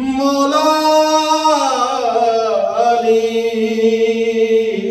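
A man's solo chanted recitation: one long melodic phrase held without a break. The pitch rises a little, glides down about two seconds in, then holds steady on a lower note until near the end.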